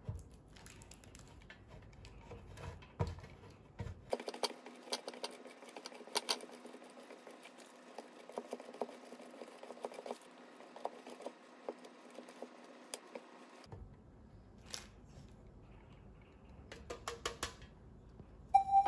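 Block of Gruyère cheese grated on a stainless steel box grater: repeated soft rasping strokes with small clicks as the grater shifts on a wooden board, stopping shortly before the end.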